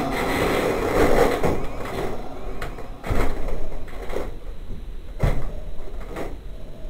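Film sound effects: a noisy rumble with a heavy thud about once a second through the second half, ending in one loud hit.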